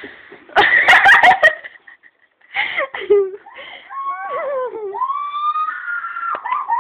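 Wordless high-pitched voice sounds: a loud burst of laughter-like noise with sharp knocks about a second in, then rising and falling whines and squeals, ending in one long drawn-out whine.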